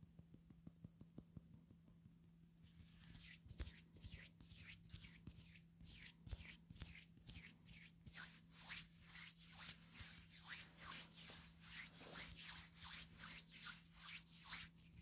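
Teeth of a comb scraped across a sheet of calendar paper in repeated short strokes, about two or three a second, starting a few seconds in after some faint light ticks.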